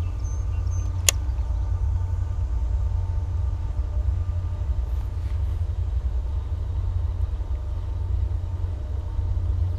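Steady low rumble throughout, with a single sharp click about a second in.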